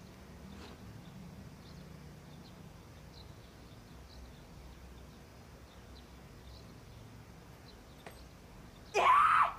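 Faint bird chirps over quiet room tone. Near the end comes a sudden loud, short cry.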